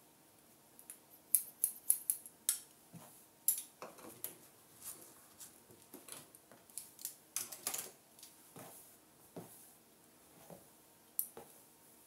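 Hair-cutting scissors snipping through sections of a mannequin head's hair, in quick runs of several snips with short pauses between and a last single snip near the end. A few soft knocks from handling the comb and hair come between the runs.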